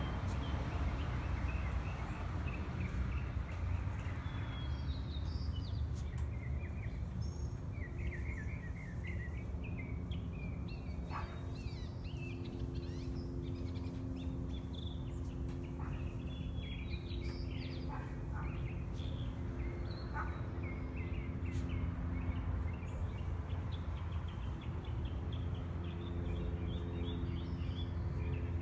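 Outdoor ambience: small birds chirping again and again over a steady low rumble, with a faint hum that fades in and out.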